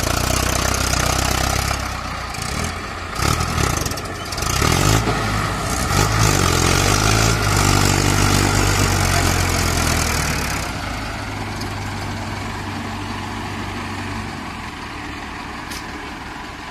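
Mahindra Arjun 555 DI tractors' diesel engines working hard under load while one tows the other out of deep mud. The engine revs up a few seconds in, holds high, then eases off after about ten seconds and drops toward idle near the end.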